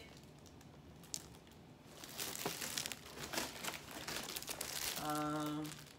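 Plastic and cardboard gift packaging crinkling as a boxed glassware set is handled, starting about two seconds in. A short, steady hum near the end is louder than the crinkling.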